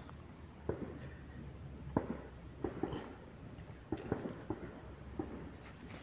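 A steady high-pitched insect drone, typical of crickets, with a handful of soft knocks and rustles scattered through it, from hands handling the chicks on dry leaves and soil.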